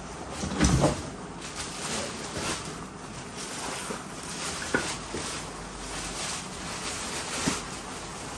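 Rustling and handling of a textile motorcycle riding jacket, with a low thump about a second in and a couple of sharp knocks later.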